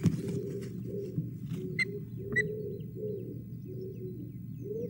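Osprey giving short, high-pitched chirps, the clearest two about half a second apart near two seconds in, over a steady low rumble.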